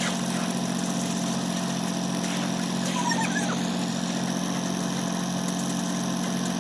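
A machine's engine running steadily at a constant speed, a continuous low hum that does not change.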